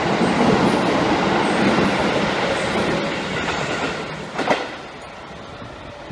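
Izuhakone Railway Sunzu Line electric train pulling away, its wheels rumbling over the rails and fading. A brief louder clack comes about four and a half seconds in, then the sound drops to a low background.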